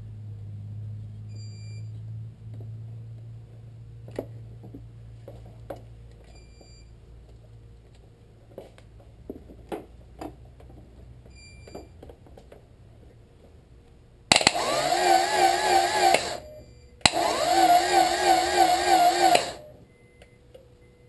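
Acura Integra starter motor whining in two bursts of about two seconds each, with a wavering pitch, as the key is turned twice. The engine does not crank: the starter spins and whines but does not turn the engine over.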